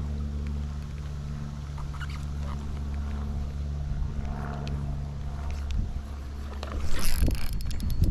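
A boat motor running with a steady low hum that cuts out about six seconds in, followed by a loud rushing burst of noise near the end.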